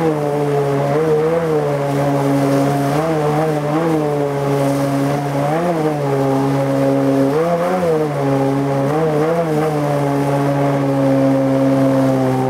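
Tohatsu M50D2S two-stroke outboard driving a water-jet unit, running steadily under load as the boat climbs upstream through shallow riffles. Its pitch rises and drops back briefly several times.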